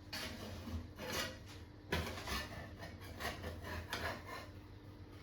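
Spatula scraping and sliding under pancakes in a frying pan, a series of short rasping strokes.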